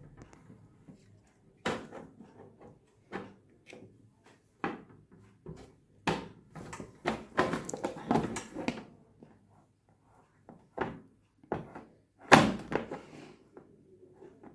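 Plastic end cover of a quartz heater being handled and pressed onto its metal body: a series of knocks, clicks and rattles of plastic against metal. They come thick in the middle, and the loudest knock falls near the end.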